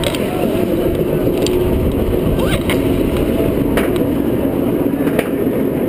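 Roller coaster train climbing its chain lift hill: a steady low rumble from the lift with a few sharp clicks at uneven spacing.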